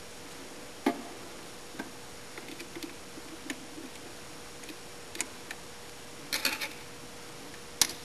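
Irregular small clicks and taps of a screwdriver and fingers working the screw terminals and wires of a sawmill's electrical drum switch inside a metal control box. A quick cluster of clicks comes about six seconds in, and the sharpest click comes near the end.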